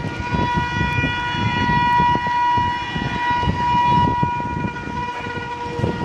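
Electric locomotive's air horn held in one long, steady high blast with overtones, lasting about five seconds and stopping shortly before the end, over the low rumble of the passing train. It is a WAP-4's horn with the sound typical of Indian three-phase locomotives such as the WAP-7 and WAG-9.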